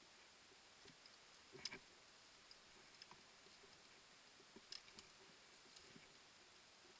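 Near silence with a few faint scattered clicks, a small cluster about one and a half seconds in and another pair near five seconds.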